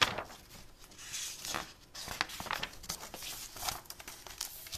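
Glossy paper catalog pages rustling and crinkling as they are flipped and handled, in a series of short, separate rustles.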